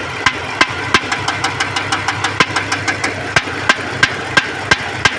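Dodge engine idling with a sharp, regular crack about three times a second over the steady running: the firecracker-like sound of a misfire.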